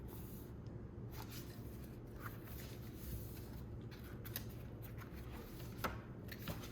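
Faint rustling of a photobook album's paper pages being turned and handled, with a few soft clicks, over a low steady room hum.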